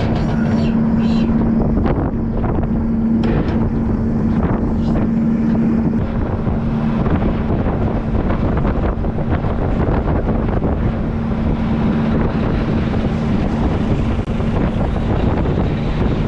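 Tractor engine running steadily with a constant hum, with wind rumbling on the microphone.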